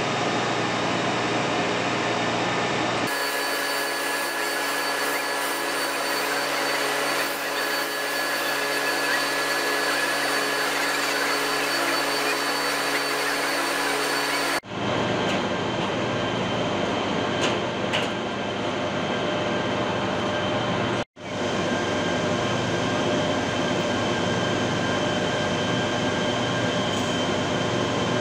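Steady industrial machinery hum and hiss in a large turbine hall, full of steady tones, changing character abruptly about 3, 15 and 21 seconds in.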